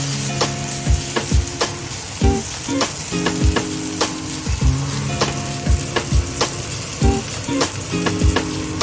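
Food sizzling steadily in a hot frying pan while a utensil stirs it, scraping and clicking against the pan every half second or so.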